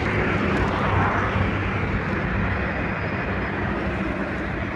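Road traffic: a motor vehicle going by, its noise swelling about a second in and then slowly fading over a low engine hum.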